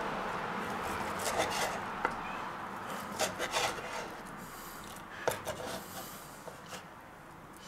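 Steak knife sawing through a grilled veal chop and scraping on a wooden board, with scattered clicks of cutlery, over a steady background hiss that fades away toward the end.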